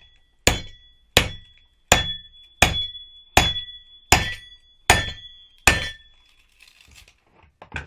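Eight evenly spaced hammer blows, about three quarters of a second apart, drive a homemade knife forged from a car leaf spring through the copper winding of a washing-machine motor. Each blow ends in a short metallic ringing.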